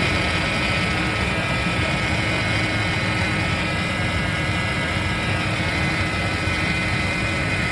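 A 1990s Jeep Cherokee's engine running steadily, with a low rumble and a few steady tones above it.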